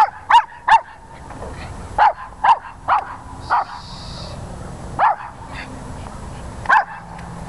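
A small dog, a Pomeranian, barking in short, sharp yaps: a quick run of three, then four more about a second apart, then two single barks. Excited barking, the kind that draws complaints from the neighbours.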